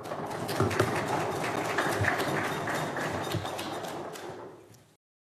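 Audience applauding at the end of a talk; the clapping thins out near the end and then cuts off abruptly.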